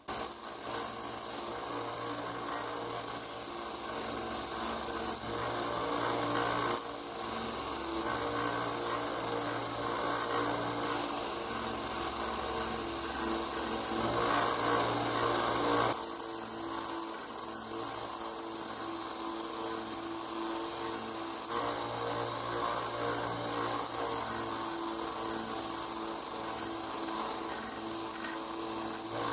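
Bench sander running steadily while black canvas knife-handle scales are pressed against the abrasive in repeated passes. A hissing grind rises each time the handle meets the belt and drops back between passes.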